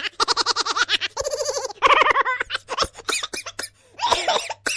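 Comic laughter sound effects: several short bursts of rapid, pitched cackling laughs, one after another with brief gaps between them.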